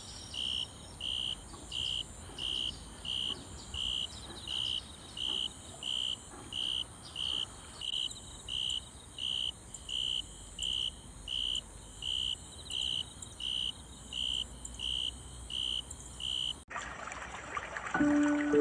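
An insect chirping in short high pulses, evenly repeated about twice a second, over a faint steady high insect buzz. The sound cuts off suddenly near the end and music begins.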